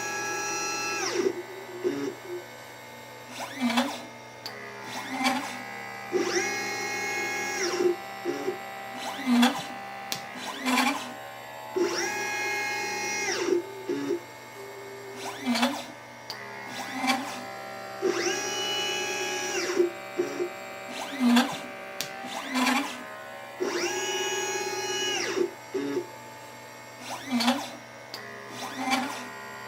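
LitePlacer pick-and-place machine's stepper motors whining through repeated gantry moves while placing capacitors and resistors. Each move is a stack of steady tones that ramps up and back down, with short buzzes and sharp clicks between moves, the cycle repeating about every six seconds.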